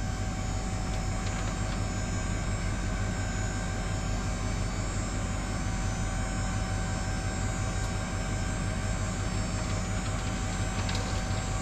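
Dump trailer's electric hydraulic pump running steadily with an even whine, slowly raising the bed to tip the load.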